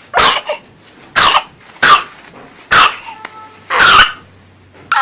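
A young child coughing repeatedly, about one cough a second, five in all, the fourth drawn out longer: a severe cough.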